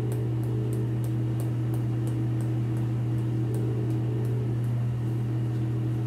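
A steady low electrical hum runs throughout. Over it come faint, light clicks about three a second from a pepper dispenser sprinkling over a bowl, stopping about five seconds in.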